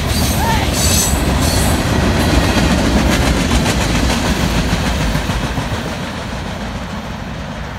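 Freight train of tank cars and covered hopper cars rolling past close by: a steady rumble of steel wheels on rail with rapid clicking as the wheels cross rail joints, growing quieter over the last few seconds.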